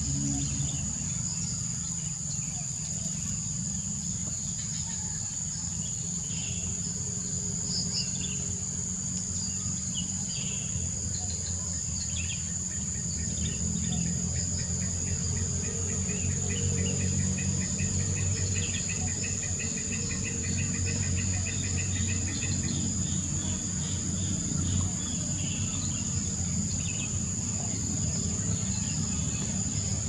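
Insects drone steadily at a high pitch, with scattered short bird chirps over the top. Near the middle a fast run of repeated ticking notes goes on for about ten seconds. A low rumble lies underneath.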